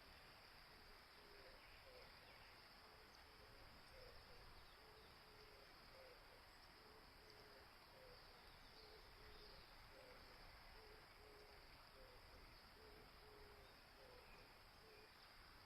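Faint outdoor ambience: a steady high insect drone, with a repeated low hooting call alternating between two notes about twice a second.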